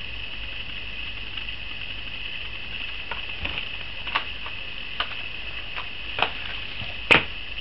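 Boxed fishing lures being handled: clear plastic-and-card lure packets clicking and tapping against each other several times, the loudest tap near the end, over a steady hiss.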